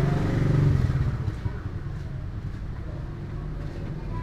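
A motor vehicle's engine passing close by, loudest in the first second, then fading to a low rumble.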